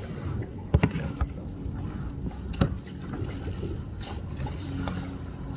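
Water splashing and lapping around a small boat, with a handful of sharp knocks, the loudest just under a second in and at about two and a half seconds. A low steady hum comes in toward the end.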